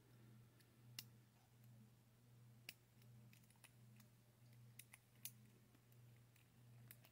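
Faint, scattered clicks, about half a dozen, of a lock pick working the pin tumblers in a brass lock cylinder.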